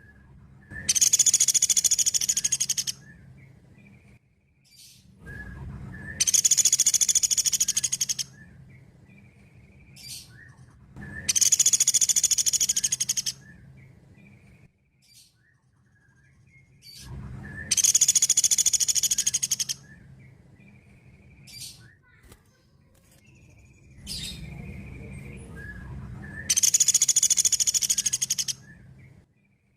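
Sunda pygmy woodpecker (pelatuk beras) calling: a loud, rapid, high-pitched trill lasting about two seconds, given five times several seconds apart, with a few short faint calls in between and a low steady hum underneath.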